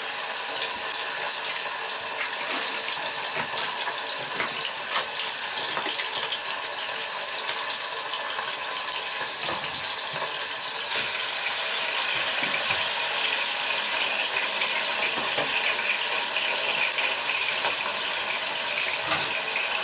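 Braising steak searing in hot lard in a large pot: a steady frying sizzle with small crackles, getting a little louder about halfway through.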